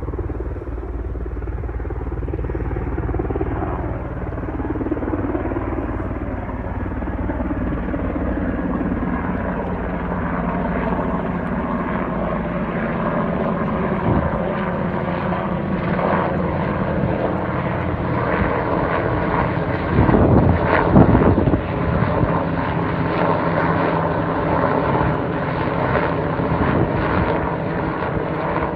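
Helicopter in flight, a steady rotor and engine drone that is loudest for a moment about twenty seconds in.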